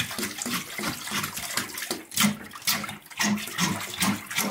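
Water splashing and sloshing in a stainless-steel sink as a hand fish descaler is run in repeated strokes along a sea bass held under the water, about two strokes a second, with the tap running into the sink.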